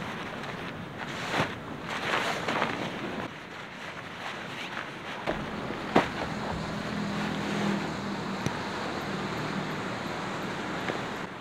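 Nylon tent fabric rustling as the tent is pulled from its stuff sack, then a sharp click about six seconds in as a strap buckle on the rolled tent is handled. Steady surf and wind noise underneath.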